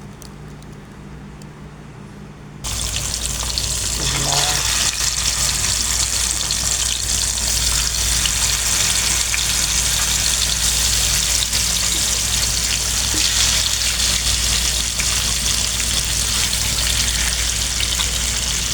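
Fish going into a smoking-hot frying pan of oil: after a quiet low hum, a loud sizzle starts suddenly about three seconds in and keeps on steadily.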